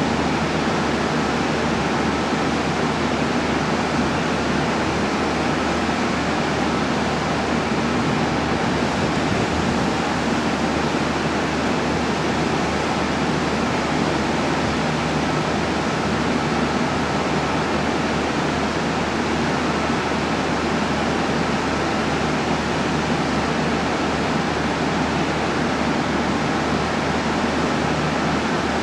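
KiHa 40-series diesel railcar idling at a station platform: a steady diesel drone with a low hum under a constant hiss.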